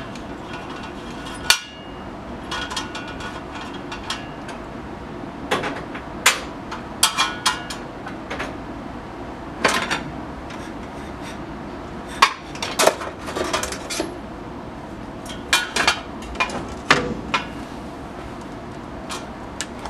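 Irregular metallic clinks and clanks, some of them ringing briefly, as tools and the saw's blade hardware are handled while the blade is loosened on a 14-inch metal-cutting chop saw.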